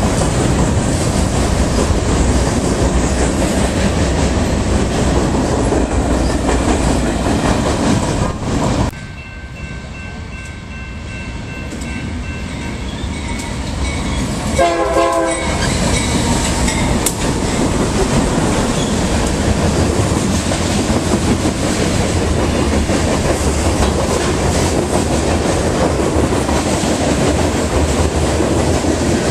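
BNSF freight cars rumbling and clattering past on the rails, loud and steady. After a sudden drop in level, an approaching freight locomotive sounds one short horn blast about halfway through, and then the locomotive and its covered hopper cars roll past close by with a loud, steady rumble and wheel clatter.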